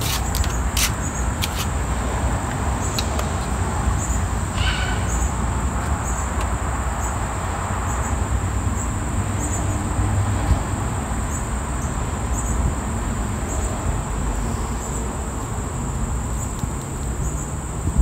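Outdoor background: a steady low rumble, like wind on the microphone, under a thin, steady high insect drone, with a few faint clicks in the first few seconds as the trimmer's engine controls are handled.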